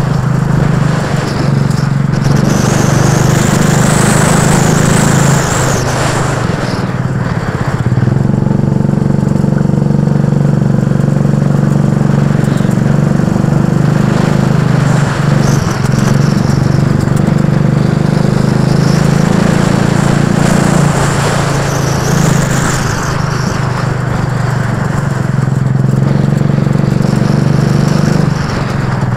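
Go-kart engine running hard on track, heard from on board the kart, its note swelling and easing a few times as the driver works the throttle through the bends.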